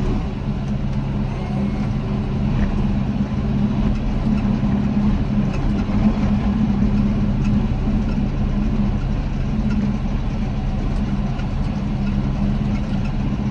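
Tractor engine running steadily with an even hum while pulling a large square baler through wheat straw.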